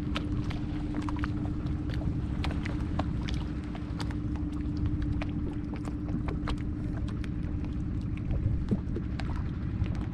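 Wind rumbling on the microphone over wooden paddle boats, with many small scattered ticks and splashes from the paddles and hulls, and a steady low hum that fades after about seven seconds.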